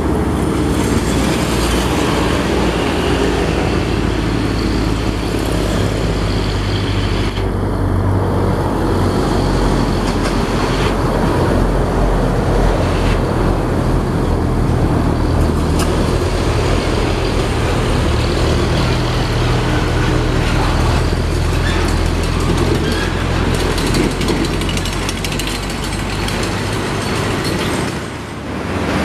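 Nissan Condor container truck's diesel engine running with a steady low drone as it drives past, with road traffic around it.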